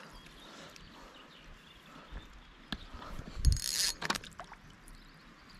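Faint water splashing from a small hooked brown trout being drawn in at the surface, with a few light clicks and a brief louder burst of noise about three and a half seconds in.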